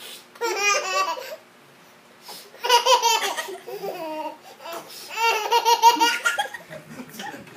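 A toddler laughing in three bursts, each a quick run of high-pitched pulses, with short quiet gaps between them.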